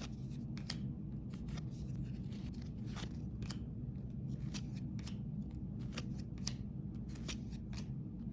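Trading cards being handled and flipped through by hand: irregular light clicks and slides of card stock, over a steady low hum.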